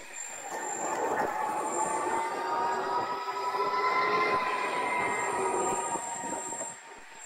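Electric skateboard riding at speed: the motor's steady whine drifts slightly up and down in pitch, over the rush of the wheels on the road.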